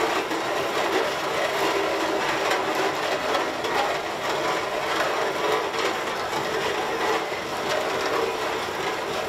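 Steam traction engine driving slowly on gravel: a steady clatter of its gearing and steel wheels, with the gravel crunching under them.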